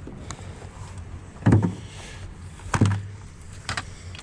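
Two dull thumps about a second and a half apart, the loudest sounds here, over a steady low hum.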